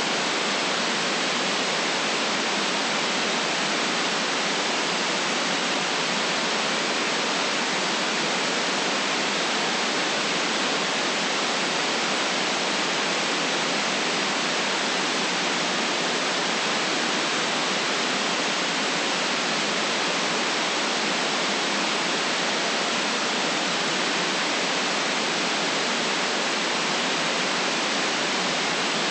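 Steady, unchanging white noise hiss with no deep bass.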